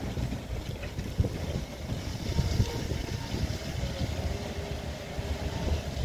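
Wind buffeting the microphone over the distant running of a fire truck's engine and water pump while it sprays water from its cannon; a faint steady engine tone sits under the rumble.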